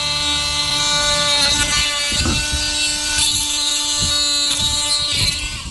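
A power tool running with a steady, high-pitched whine, with some scraping against the roof, as old mastic is stripped from a motorhome roof. It is really super noisy.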